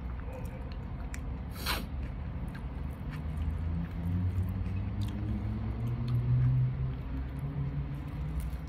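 A person chewing a mouthful of pizza with small wet mouth clicks. A low wavering hum rises about halfway through and is loudest near six seconds in.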